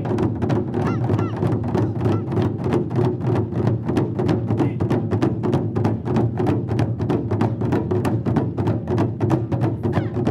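Ensemble of Japanese taiko drums struck with wooden sticks, played as a steady fast rhythm of strikes with a deep boom under them.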